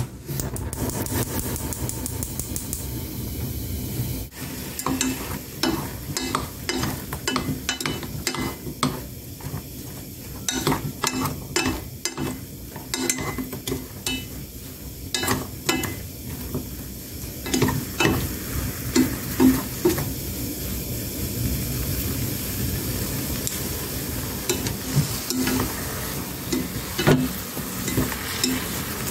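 Seasoned eggplant slices sizzling as they are stir-fried, with wooden utensils clacking and scraping against the pan. The clacks come thick and fast through the middle, then give way to a mostly steady sizzle, with a few more clacks near the end.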